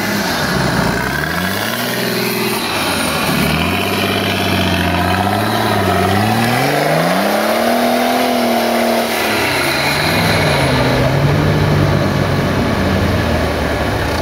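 Off-road rally buggy's engine revving up and dropping back in repeated surges, pitch climbing highest about eight seconds in before falling and settling lower. It is working under load while the buggy climbs a steep muddy bank.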